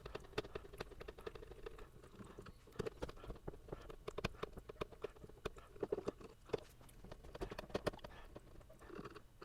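Small Phillips screwdriver backing self-tapping screws out of a plastic appliance base, giving faint, irregular clicks and scrapes with some handling of the plastic housing.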